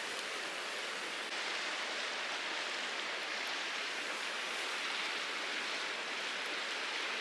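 Mountain stream water rushing steadily, with a few faint ticks over it.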